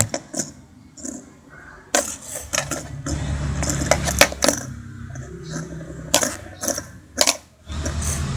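Sharp, irregular plastic clicks and taps from a fidget spinner being handled, with a low steady hum underneath from about three seconds in.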